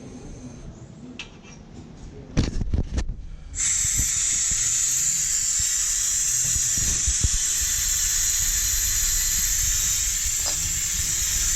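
A few knocks from a shop car jack, then from about three and a half seconds in a loud, steady hiss of compressed air as the pneumatic jack works.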